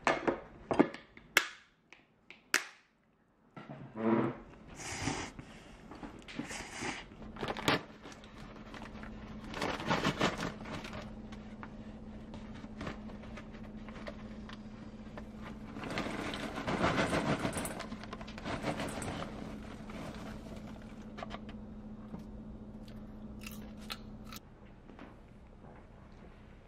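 A few sharp clicks of chopsticks against ceramic bowls, then a steady low hum under spells of crunchy rustling and rattling as freshly popped microwave popcorn is handled from its paper bag into a stainless steel bowl.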